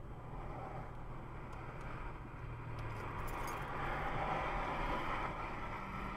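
Car driving, heard from inside the cabin: a steady low engine hum under road noise that grows louder about four seconds in. A few faint high clicks come between about one and a half and three and a half seconds in.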